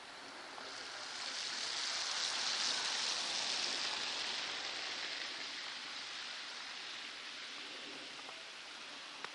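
A car passing on a slushy, snow-covered street: the hiss of its tyres through wet slush swells over a couple of seconds, peaks, then slowly fades.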